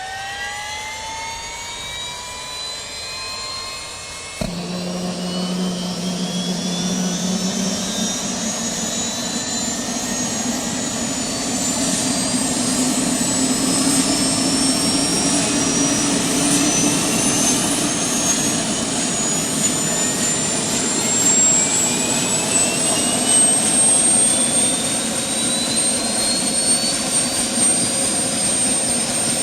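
Helicopter turbine engine starting: a rising starter whine, then a sudden click about four and a half seconds in as the engine lights and the sound grows louder. The turbine then spools up with a whine climbing steadily in pitch until it levels off near the end.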